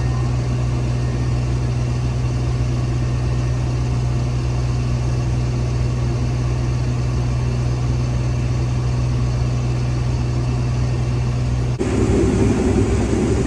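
Case IH 2388 combine running steadily with a low engine drone. Near the end the sound changes abruptly to a louder, rougher rumble.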